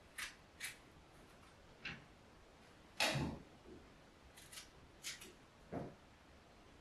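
Light, scattered clicks and snips as a small kitchen knife cuts a fresh strawberry held in the hand, with one louder knock about three seconds in.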